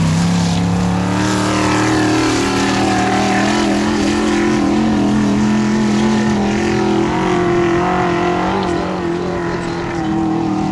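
Loud, steady engine of the Big Willys Formula Offroad buggy under full load as it climbs a steep gravel wall, the note easing slightly about seven seconds in.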